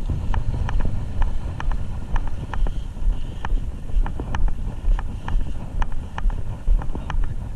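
Low rumble of wind buffeting a body-worn action camera's microphone, with light irregular clicks or rattles about two or three times a second.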